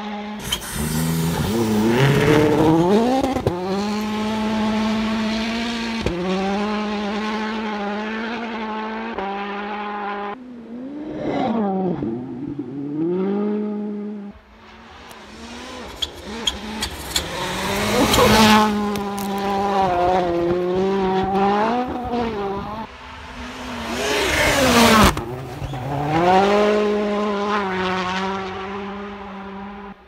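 Citroën C3 WRC rally car's 1.6-litre turbocharged four-cylinder engine at full throttle, its note rising and falling sharply through fast gear changes as it speeds by and fades away. A second run comes up and past about halfway through, with sharp cracks at its loudest moments.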